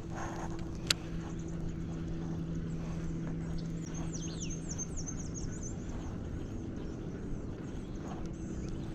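A bird's quick run of high chirps near the middle, over a steady low hum, with a single sharp click about a second in.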